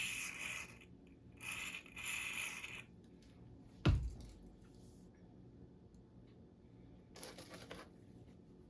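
Olympic barbell parts being handled and fitted: three short scraping noises and one sharp metal knock about four seconds in.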